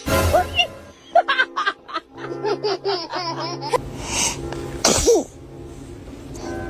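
A baby sneezing about four to five seconds in, with music playing.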